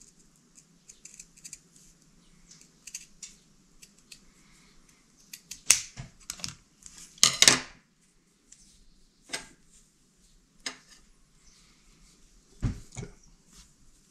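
Scissors snipping through a narrow strip of self-adhesive felt, several sharp cuts bunched together in the middle, amid faint handling rustle. A dull knock comes near the end.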